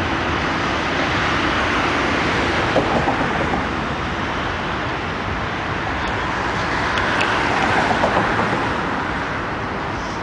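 Steady city road-traffic noise, swelling twice as vehicles pass.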